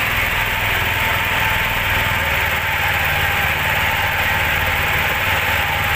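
Engine of a small outrigger fishing boat running steadily under way, over a constant rushing hiss of water wash.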